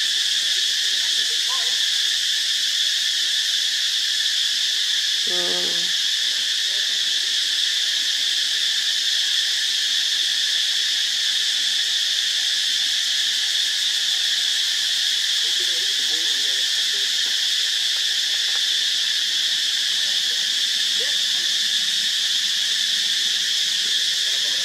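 Steady, high-pitched drone of an insect chorus in tropical forest. About five seconds in, a short, voice-like call.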